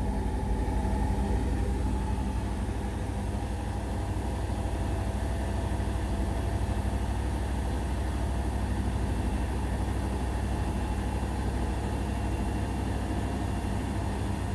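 Indesit BWE101683 washing machine's drum and motor running in the early, low-speed part of the final spin with a slightly unbalanced load: a steady low hum with a few fixed motor tones above it.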